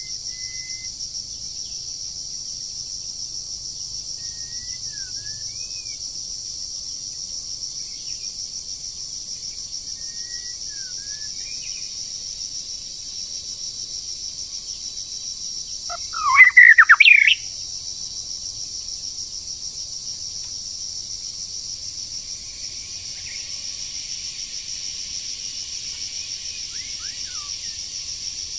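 A red junglefowl cock crows once, loud and about a second long, a little past halfway. Under it runs a steady high drone of cicadas, with scattered short chirps of small birds.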